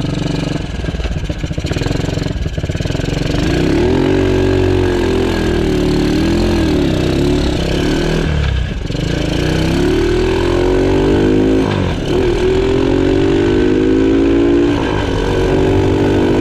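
Mini monster truck's 454 cc Arctic Cat Bearcat engine running under way, climbing in pitch several times as it speeds up and dropping back briefly between climbs.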